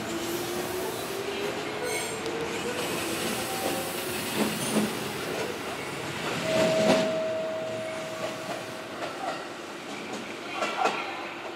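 JR 205 series 3100 electric train pulling out, its motor hum rising slowly in pitch as it gathers speed, with wheels clacking over rail joints. A steady higher tone sounds for about two seconds just past the middle.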